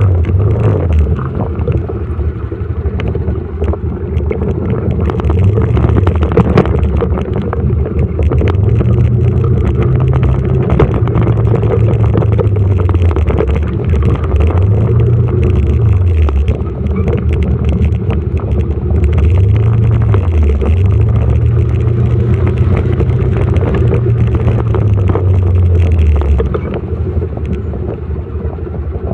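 Motorcycle engine running while riding, its note rising and falling several times as the throttle opens and closes, and dropping near the end as it slows.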